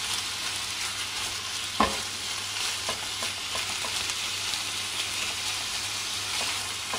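Minced turkey sizzling as it fries in fat in a nonstick pan, while a spatula stirs and scrapes it with small clicks, and one louder knock about two seconds in. The raw meat is just starting to cook.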